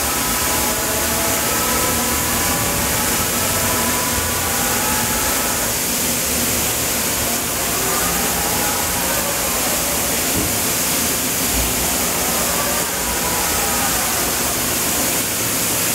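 Steady machinery noise with a strong hiss and a low hum, and faint whining tones that rise and then fall, twice in the middle and again near the end.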